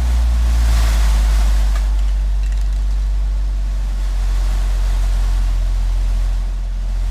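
Two 24-inch Sundown Audio ZV.5 subwoofers in one large ported box playing loud, steady, very deep bass, with a second, slightly higher bass note joining about four seconds in. A hissing buzz sits over the bass throughout.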